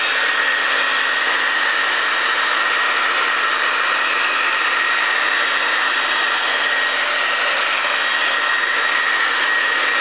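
Handheld electric hair dryer running steadily: the rush of air from its fan with a steady high whine from the motor.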